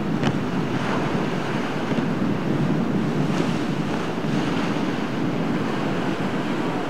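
Rough surf breaking and washing, with wind buffeting the microphone and a few sharper splashes standing out.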